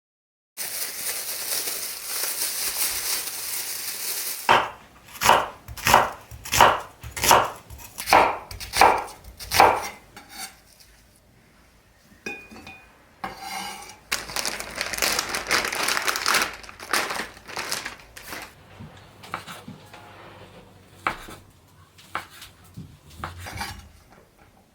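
Kitchen food-preparation sounds: a few seconds of steady rushing noise, then a run of about nine even cutting strokes, followed by more rushing noise and scattered clicks and knocks of utensils.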